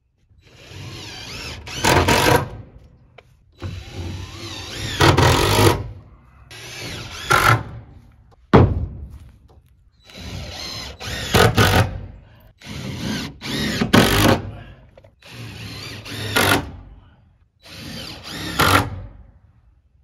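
Cordless power driver sinking screws through wooden siding panels into the coop framing: about seven separate runs of a second or two, each rising to a louder burst as the screw seats. A single sharp knock about eight and a half seconds in.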